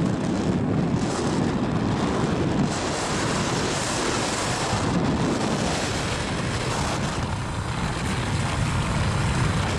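Wind rushing over the microphone of a camera carried on a moving motorcycle, with road and engine noise underneath.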